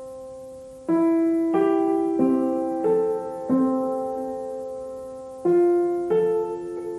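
Slow, gentle piano music. Single notes are struck about every two-thirds of a second, and each is left to ring and fade; one note near the middle is held longer before the melody moves on.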